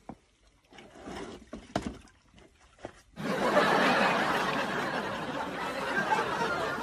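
A few faint clicks, then, about three seconds in, a burst of group laughter starts abruptly and carries on, like an added laugh track.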